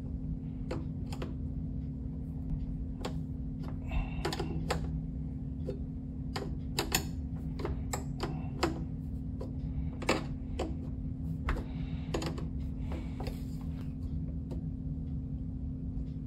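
Irregular metallic clicks and taps of an open-end wrench working the brass nut of a braided stainless water supply line, snugging it onto a refrigerator's water inlet valve, over a steady low hum.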